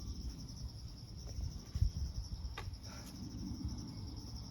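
Steady chorus of insects chirping in a fast, even pulse, high-pitched, over a low rumble, with a single sharp click about two and a half seconds in.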